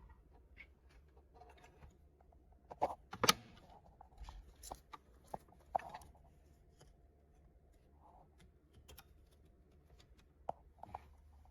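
Scattered light clicks and taps of small items being handled on a workbench, with two sharper clicks about three seconds in.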